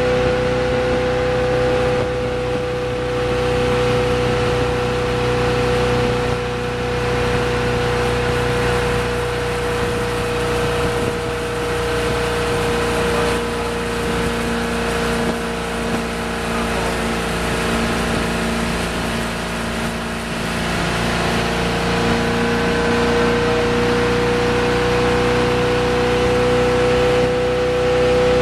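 Tow boat's engine running steadily at skiing speed, with the rush of water and wind around the moving boat. The engine note dips a little about halfway through and then comes back up.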